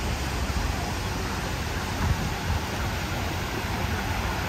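Busy street ambience: a steady rush of passing traffic with an uneven low rumble and no single standout event.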